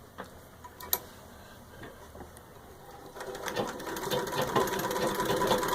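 Antique Singer 66-4 treadle sewing machine starting to stitch through six layers of denim. A couple of light clicks come first. About three seconds in, the even rhythm of the needle and mechanism begins and grows steadily louder as the machine gets going.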